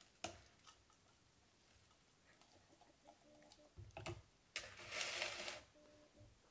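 Quiet kitchen handling sounds: a few faint clicks and knocks, then a rustling scrape lasting about a second a little past the middle.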